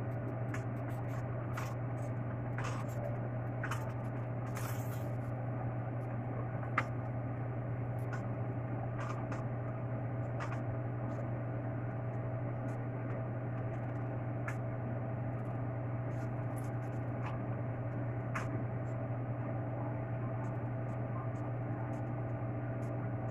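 Quesadilla cooking in a frying pan: scattered faint pops and crackles over a steady low hum, with one sharper click about seven seconds in.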